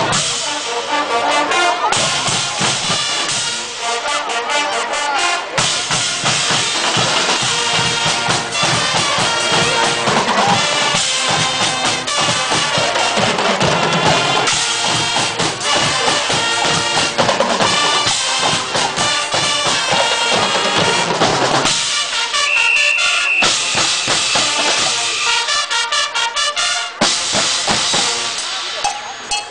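Guggenmusik carnival band playing, with brass horns over bass drum, snare drums and cymbals beating out the rhythm.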